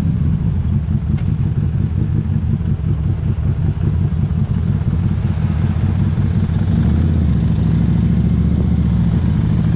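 Harley-Davidson Street 500's V-twin engine running steadily under way through its aftermarket Vance & Hines exhaust, a low, even exhaust note.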